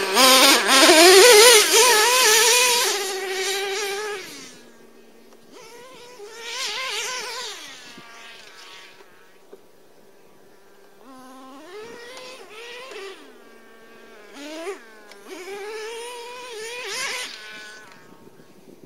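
Traxxas T-Maxx nitro RC truck's modified 3.3 two-stroke glow engine buzzing through a drilled-out resonator pipe, revving up and down again and again. It is loud for the first four seconds, then fainter, with several more revving bursts later on.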